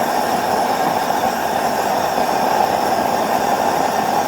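Propane gas forge burner running steadily: a loud, even rush of burning gas.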